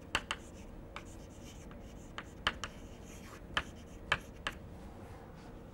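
Chalk writing on a chalkboard: a string of short, sharp taps and scratches at irregular intervals as letters are stroked out.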